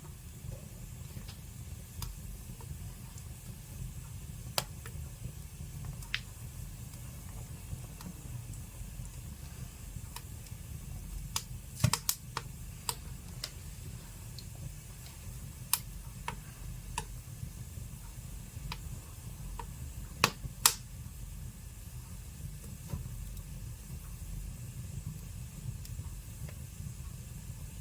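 Wood fire burning in a fireplace: a steady low rumble from the flames, with scattered sharp crackles and pops that come loudest in a cluster about twelve seconds in and again about twenty seconds in.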